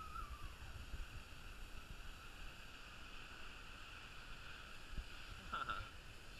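Faint steady outdoor background hiss with low wind rumble on the microphone, and a short distant voice calling out about five and a half seconds in.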